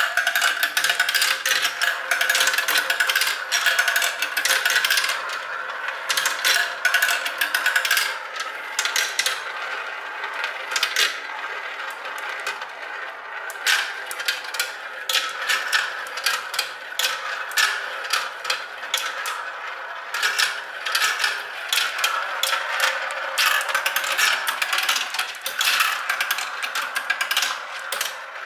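Glass marbles rolling and clattering through a plastic marble run: a steady rolling hum under many sharp clicks as they strike the track pieces and bowls. The clicks thin out for a few seconds in the middle, then grow dense again.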